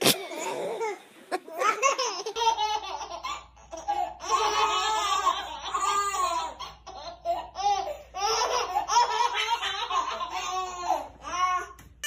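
Babies laughing in repeated short bursts of high, wavering giggles.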